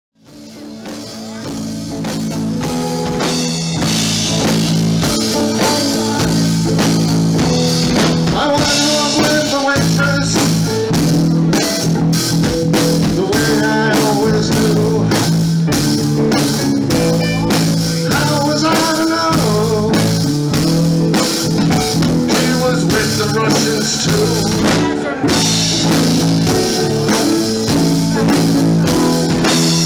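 Live rock band playing: electric guitars, keyboard and drum kit, fading in over the first two seconds and then going steadily.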